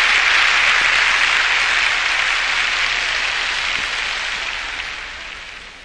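A large congregation applauding, a dense steady clapping that dies away over the last couple of seconds.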